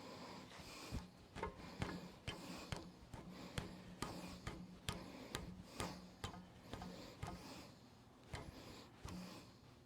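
Irregular sharp clicks and ticks, about one or two a second, from hand tools turning a small-block engine's crankshaft slowly toward a piston stop, over a faint steady hum.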